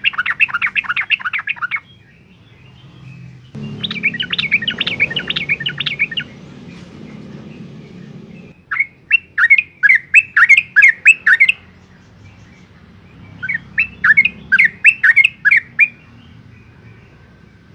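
Yellow-vented bulbul (trucukan) singing: four bursts of rapid, chattering notes, each lasting two to three seconds, separated by short pauses.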